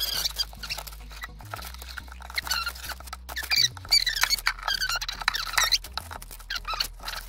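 Chef's knife pressed down through a baked sheet pan pancake onto the parchment-lined pan, giving a series of short high squeaks as the blade cuts, with faint ticks between them.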